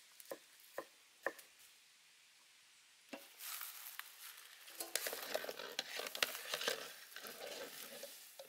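Water boiling hard in a metal wok around whole eggs, a steady bubbling hiss. From about two seconds later a wire skimmer scrapes and clicks against the wok and the eggs as they are scooped out. A few short soft smacks come in the first second and a half.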